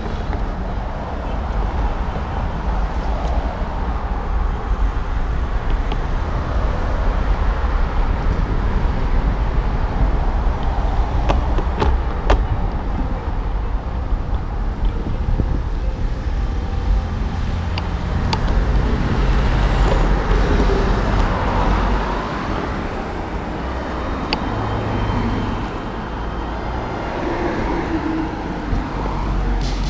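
Road traffic passing close by, heard from a moving bicycle, over a heavy low rumble of wind on the microphone. A minibus passes close alongside near the end.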